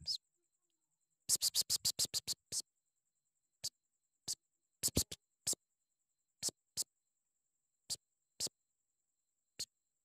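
Sparse, clicky electronic percussion: a quick run of about eight sharp ticks in the first few seconds, then single clicks spaced half a second to a second apart, with dead silence between them.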